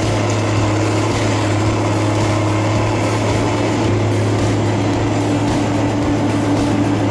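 Heavy machinery engine running steadily under load, with a constant low hum.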